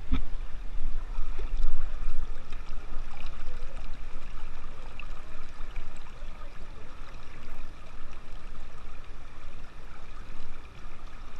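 River water rushing over rocks, heard close up at the water's edge: a steady, even rushing.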